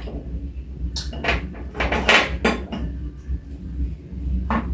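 Plates and dishes knocking and clattering: a run of short knocks in the first half and one more near the end, over a low steady hum.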